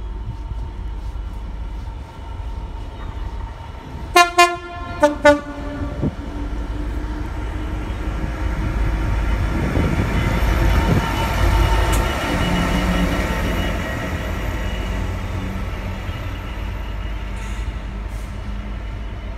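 Freightliner Class 66 diesel locomotive running light engine. About four seconds in it sounds its two-tone horn in four short blasts, the first two on the higher note and the last two on the lower. Its two-stroke V12 diesel engine then grows louder as it passes close by and fades as it pulls away.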